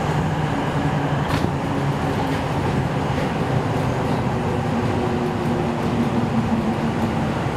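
Sendai Subway Tozai Line linear-motor train running through a tunnel, heard from inside the car: a steady rumble of wheels and tunnel with a low motor hum that shifts slightly in pitch partway through.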